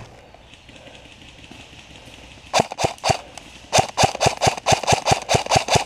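Electric airsoft rifle (custom M4) firing in sharp cracks: four shots about two and a half seconds in, then a quick steady string of single shots at about six a second.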